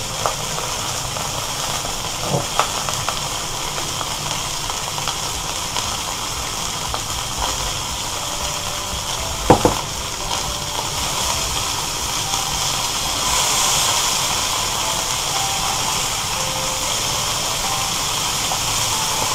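Langoustines and cherry tomatoes frying in olive oil in a nonstick pan: a steady sizzle. A few short clicks of the tongs against the pan as the langoustines are turned, the loudest about halfway through.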